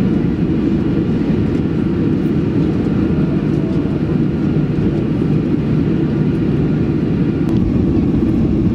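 Steady low rumble inside the cabin of a Boeing 737 as it taxis, its jet engines running at low power.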